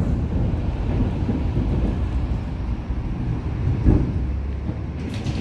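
Tram running along its track, heard inside the passenger cabin: a steady low rumble of wheels and running gear on the rails, with a single thud about four seconds in.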